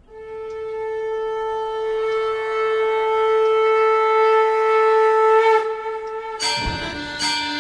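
A conch shell (shankh) blown in one long steady note that rises slightly as it ends. Near the end, a deep boom starts instrumental music.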